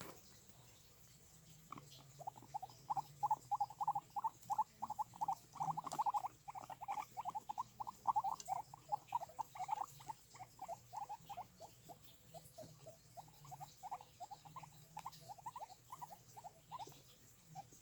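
Guinea pig giving a rapid series of short, rising squeaky calls, about three a second. The calls start about two seconds in, are loudest early on, and grow fainter and more spaced out toward the end.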